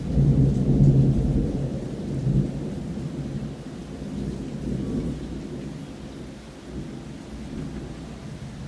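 Thunder rolling after a nearby lightning strike, a deep rumble that is loudest in the first couple of seconds and slowly dies away.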